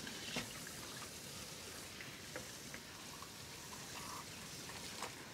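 Kitchen tap running into a stainless steel sink while a piping bag is rinsed out under the stream, washing the icing out. A few light knocks and clicks come through over the steady splashing.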